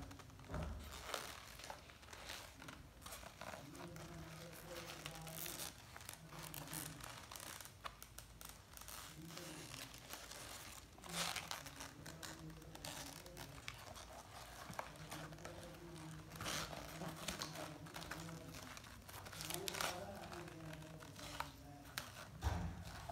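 Paper pages of a handmade spiral-bound flip book being handled and turned, crinkling and rustling, with louder rustles about eleven, sixteen and twenty seconds in.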